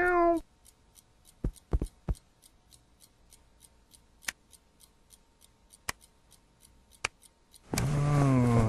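Cartoon sound effects: a short cat meow at the start, then a faint, fast, steady ticking with a few soft thumps and clicks as the cat settles. Near the end a loud, low human groan with falling pitch.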